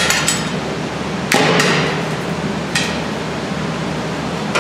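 Several sharp metallic knocks at irregular intervals as the drive shaft and its center support bearing are worked loose from the bearing's support bracket, metal striking metal with a brief ring.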